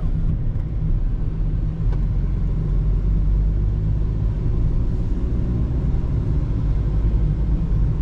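Ford EcoSport cabin noise while driving: a steady low rumble of engine and tyres on the road.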